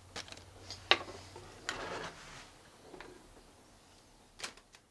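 Kitchen knife scraping and tapping on a cutting board as chopped jalapeños are scooped into a plastic zip-top bag, with a sharp tap about a second in, a brief scrape and bag rustle around two seconds, and a few lighter clicks.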